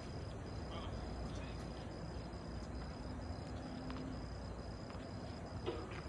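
Steady outdoor night ambience with a thin, high, continuous insect trill. A single short knock comes near the end.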